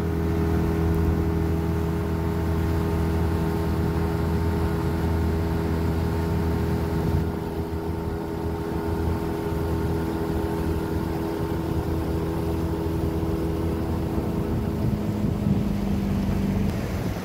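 Boat motor running steadily, dropping slightly in level about seven seconds in.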